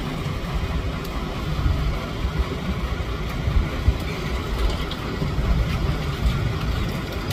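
Boat engine running at a steady low rumble, mixed with wind and water noise at sea.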